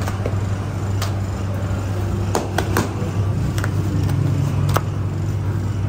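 Hands slapping and patting bread dough flat on a floured steel counter: several sharp slaps at uneven intervals over a steady low machine drone.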